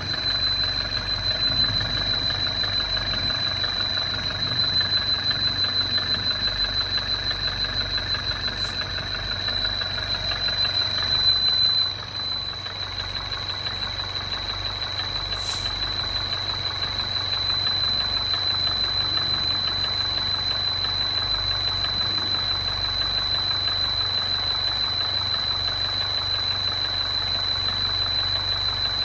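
MINI Crossover (R60) engine running steadily at idle with the abnormal noise its owner is recording, a steady high-pitched whine sounding over the engine throughout.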